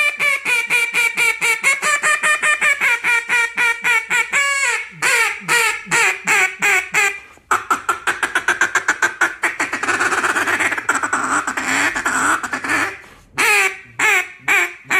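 Duck call blown in a competition-style routine of quacks. It opens with a fast string of quacks, then slower single quacks, a very rapid rolling run of notes about halfway through, and spaced quacks again near the end.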